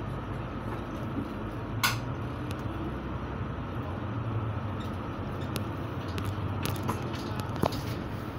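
Inside a moving city bus: steady engine and road rumble, with a few sharp clicks or rattles from the cabin, the loudest about two seconds in and a couple more near the end.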